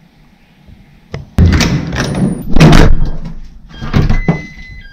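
A front door fitted with a digital door lock being opened to come back in: a click, then loud clunks and clatter of the lever handle and door, and a short steady electronic tone from the lock near the end.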